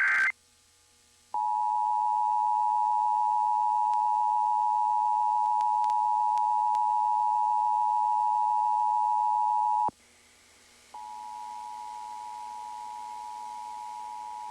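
Emergency Alert System attention signal: a steady two-pitch alert tone that holds for about eight and a half seconds and cuts off abruptly. About a second later a quieter tone of the same pitch starts and holds.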